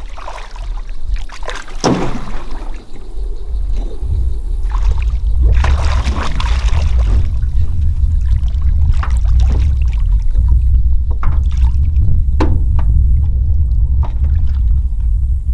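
A hooked catfish thrashing at the surface beside an aluminium boat as it is pulled up on a jug line: irregular splashes and sloshing water, over a loud low rumble that sets in about four seconds in.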